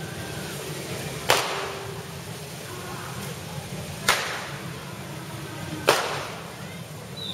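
Correfoc firecrackers going off: three sharp bangs with ringing tails, about a second, four seconds and six seconds in, over the steady hiss of hand-held spark-spraying fireworks (carretilles).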